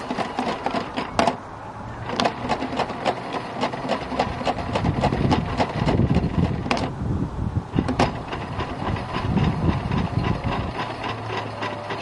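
Theo Klein toy Miele washing machine running its battery-powered drum with liquid inside: a small motor whirring with a busy rattle and many irregular clicks.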